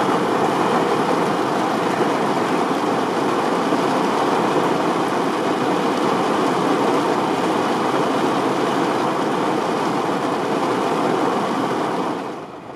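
Heavy downpour hitting the roof and windows of a parked Honda Fit, heard from inside the car: a loud, steady rush of rain. It gets much quieter near the end.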